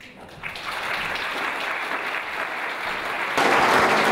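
Audience applauding. The clapping starts softly, swells, and grows louder again about three and a half seconds in.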